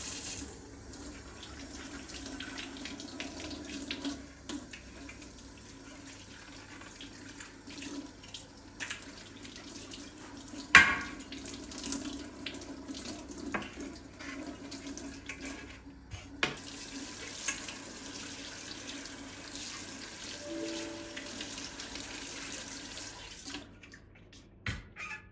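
Tap water running into a sink while things are washed under it, with scattered clinks and knocks against the sink and one sharp clink about eleven seconds in. The water stops near the end.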